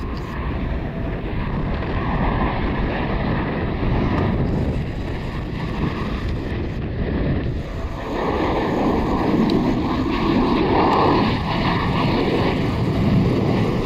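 Jet engine noise from a Boeing 737-800 (CFM56-7B turbofans) on a low approach, growing louder about eight seconds in as the engines go to go-around thrust for a missed approach. Wind buffets the microphone throughout.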